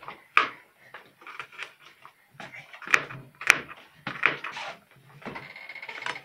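Kitchen knife chopping garlic cloves on a plastic cutting board: a dozen or so uneven knocks of the blade on the board, the sharpest two about three seconds in.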